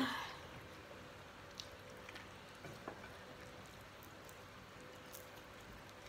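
Quiet room tone with a faint steady hum, broken by a few soft clicks and small squishy eating sounds as fingers pick fish out of a clay pot and people chew.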